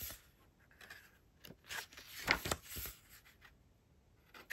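Pages of a glossy photo book being turned by hand: a few short paper rustles and swishes, then it goes quieter near the end.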